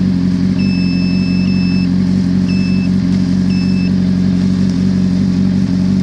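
Motorcycle engine idling steadily after being jump-started from a dead battery with a portable jump starter. A high electronic beep sounds three times over it, once long and then twice briefly.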